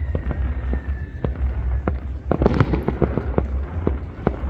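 Fireworks and firecrackers going off in irregular bangs and pops, with a faint falling whistle in the first second and a dense burst of crackling about two and a half seconds in.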